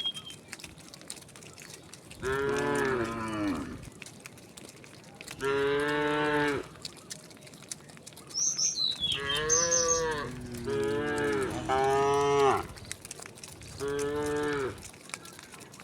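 Cattle mooing, about six long moos spread out, some following close on one another. A bird's short falling whistle sounds between them about two-thirds of the way through.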